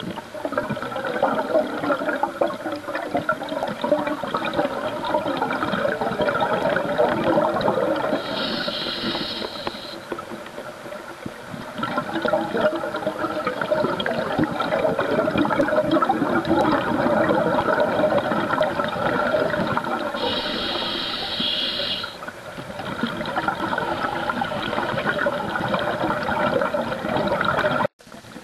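Scuba breathing heard underwater through the camera: a continuous bubbling rush of exhaled air from a regulator, broken twice by a short hissing breath in, about 8 seconds in and again about 20 seconds in. The sound cuts out for a moment near the end.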